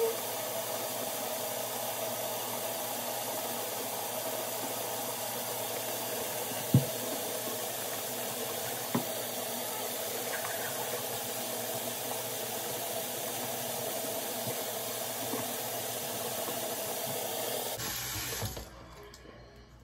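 Bathroom sink tap running steadily, a constant hiss of water, shut off near the end. Two light knocks about seven and nine seconds in.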